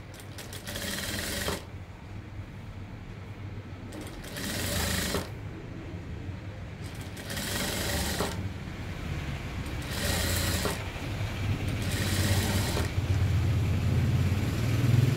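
Industrial flatbed sewing machine stitching in five short runs of about a second each, stopping between runs, over a steady low motor hum.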